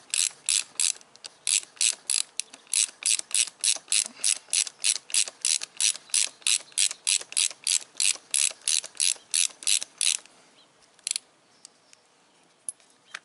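Socket ratchet wrench clicking in a quick, even rhythm, about three clicks a second, as a loose handguard mounting bolt is wound out; the clicking stops about ten seconds in.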